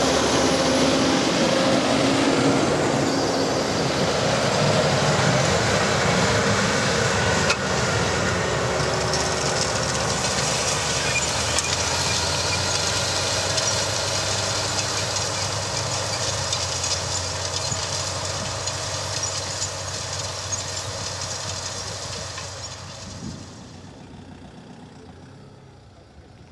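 A John Deere 7530 tractor's six-cylinder diesel engine working under load as it pulls a Kuhn Speedliner 4000 seed drill, with the rattle of the drill behind it. It is loud and close at first, then fades over the last several seconds as it moves away.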